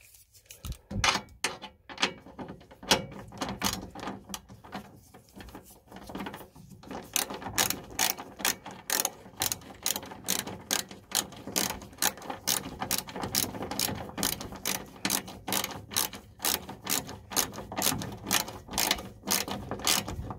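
Socket ratchet wrench clicking as it drives in a fan-guard bolt. A few scattered clicks at first, then from about a third of the way in a steady run of quick clicks, about three a second.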